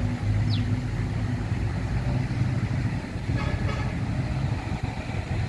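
Steady low rumble, with a short high chirp falling in pitch about half a second in.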